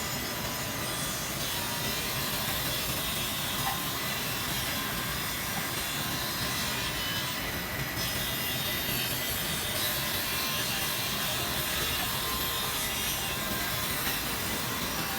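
Automatic double-end cut-off and milling saw for wood running, its blades cutting through wood with a steady, continuous noise.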